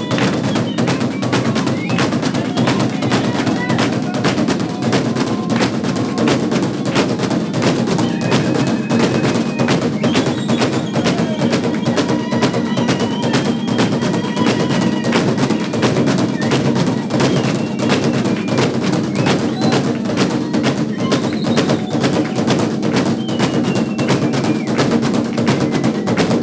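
Fast, steady drumming on a traditional Zulu cowhide-headed drum, beating out the rhythm for a Zulu dance, with occasional high calls over it.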